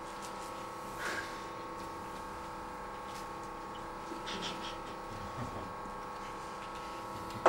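Quiet room tone with a steady electrical hum and a few faint handling knocks as a man drinks from a small glass. At the end comes a sharp knock, the loudest sound, which fits the glass being set down on the table.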